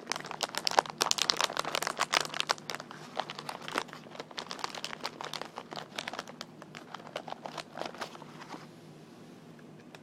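Crinkly wrapping being crinkled and tapped by fingers for ASMR, making dense, irregular crackling that stops suddenly near the end, leaving a faint low hum.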